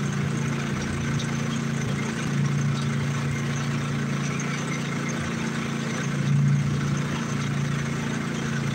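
A small engine on a bowfishing boat running steadily at a constant speed, with a slight swell about six and a half seconds in.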